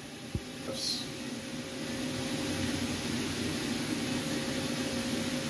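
Steady mechanical whir of a CNC machine as its Z axis is jogged slowly by handwheel toward the home marks, rising slightly over the first second or two, with a small click just after the start.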